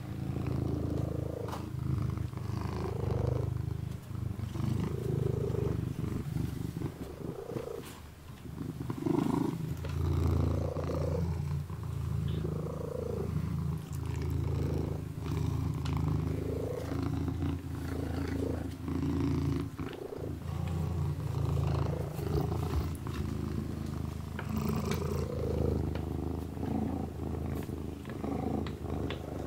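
Kitten purring steadily close up, the purr swelling and easing with each breath every second and a half or so and pausing briefly about eight seconds in, with small clicks of licking as it grooms its paw.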